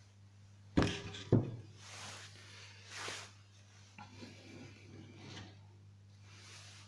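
Wooden planks handled on a wooden workbench: two sharp knocks about half a second apart as a board is set down, then softer scraping as wood slides over the table.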